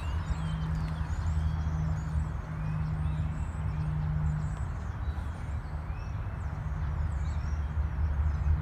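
Steady low hum and rumble with faint bird chirps above it.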